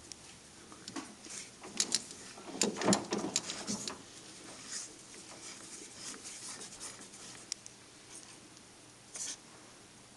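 Light metallic clicks, scrapes and knocks as the knurled collet-closing wheel of a lathe collet chuck is turned by hand to loosen the collet around the threaded bolt. The sounds are busiest about two to three and a half seconds in, then sparse, with one short rattle near the end.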